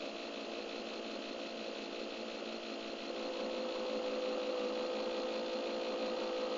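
Walthers N-scale 130' turntable's drive motor turning the bridge with a steady electric whine of several tones. A higher tone joins about three seconds in, and the sound grows a little louder.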